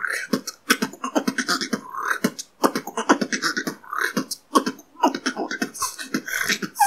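Human beatboxing: a fast, continuous run of mouth-made kick drums, rimshots, outward K snares and hi-hats, freestyled on the tutorial's pattern.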